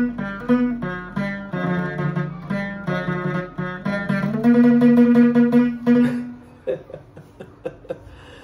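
Chapei dang veng, the Cambodian long-necked two-string lute, being plucked: a melody of single notes, then rapidly repeated plucks on held pitches, thinning near the end to a few quieter plucks and taps as the playing stops.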